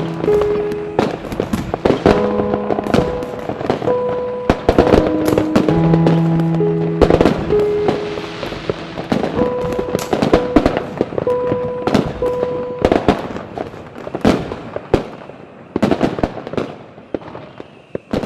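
Many fireworks going off at once, a dense run of bangs and crackles, with background music of held notes over them. The music drops out about two thirds through, and the bangs thin out and fade away toward the end.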